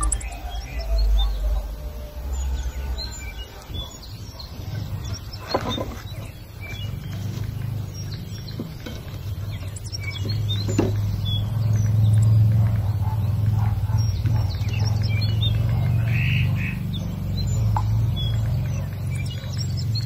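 Small birds chirping and twittering in short, scattered calls, over a steady low rumble that grows louder about halfway through.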